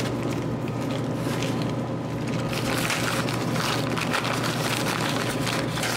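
Paper and plastic bags rustling and crinkling in short irregular bursts as small ingredient packets are opened and unwrapped by hand, over a steady low hum.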